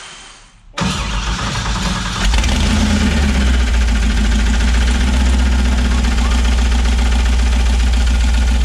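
Mid-mounted engine of a 1967 Mustang fastback starting up about a second in, catching fully about two seconds in and then running loudly and steadily. It is the engine's first start on a newly installed Holley Dominator EFI system.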